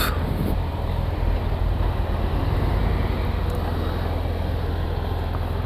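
BMW F800GS's parallel-twin engine idling steadily while stopped, with street traffic in the background.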